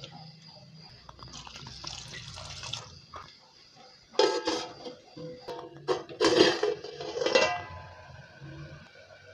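Water poured from a steel plate into a clay cooking pot onto chopped onion and tomato, splashing in two loud bursts about four and six seconds in.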